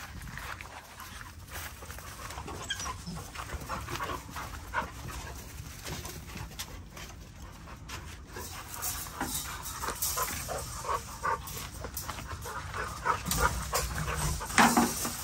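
American bully puppies making dog sounds, while the wire panels of a folding metal exercise pen rattle and clank as it is handled and moved. The clanks get busier in the second half, and the loudest comes near the end.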